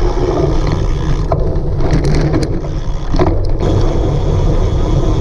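Wind rumbling steadily over the microphone of a camera carried on a racing cyclocross bike, with a few short knocks and rattles from the bike over rough ground.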